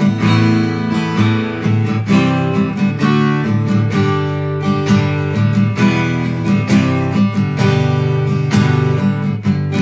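Early-1940s Harmony-made Stella 'figure 8' acoustic guitar, all birch and converted to X bracing, strummed in chords in a steady rhythm, the chord changing every couple of seconds.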